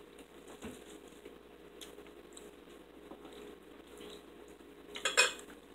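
Metal forks clinking and scraping on ceramic dinner plates during a meal, in scattered light clicks, with a short louder clatter about five seconds in.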